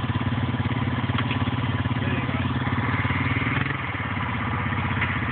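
ATV engine idling steadily, its note shifting slightly about two-thirds of the way through.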